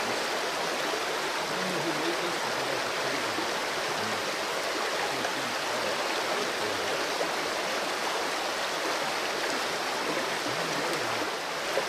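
Steady rushing of a running stream.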